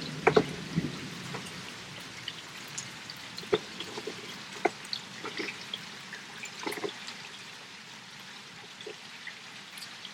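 Rain falling steadily, with heavy drops dripping and splashing in irregular ticks.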